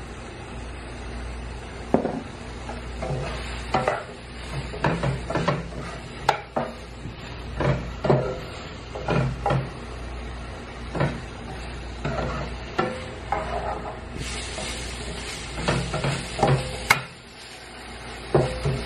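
Broccoli sautéing in olive oil in a frying pan, sizzling, while a utensil stirs it with irregular scrapes and clacks against the pan. The sizzle grows brighter for a few seconds near the end.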